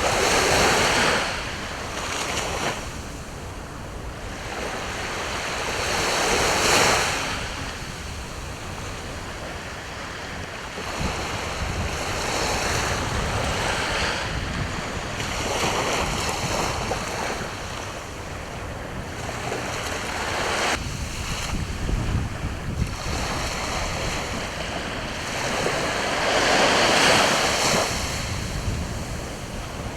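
Sea waves breaking and washing onto the shore in slow surges, the loudest about a second in, near seven seconds and near twenty-seven seconds, with wind rumbling on the microphone.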